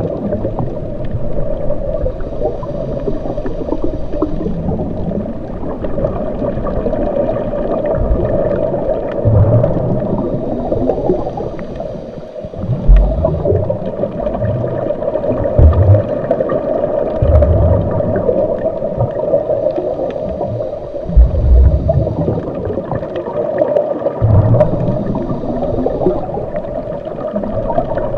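Watery gurgling ambience with low surges every second or two, and faint high steady tones in a few stretches.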